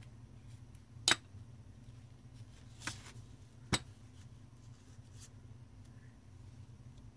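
A few sharp clicks and taps of a metal palette knife being set down in a small glass bowl and a canvas being handled: the loudest about a second in, two more around three and four seconds. A low steady hum runs underneath.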